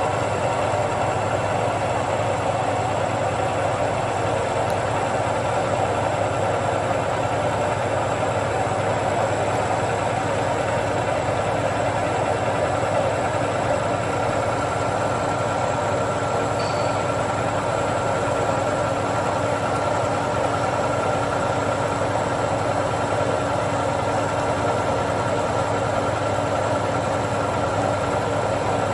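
Horizontal milling machine cutting steel with an insert milling cutter along the face of a weldment: a steady cutting noise over the machine's hum, with a constant whine.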